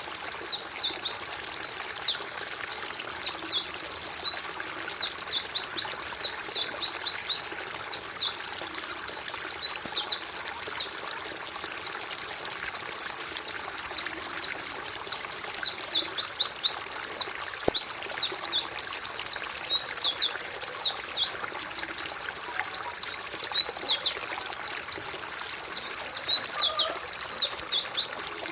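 White-eye (pleci) song: a dense, unbroken chatter of quick, high, downward-sweeping notes over a steady faint hiss. This is a masteran tutor recording meant to get a bird that is reluctant to sing to start singing.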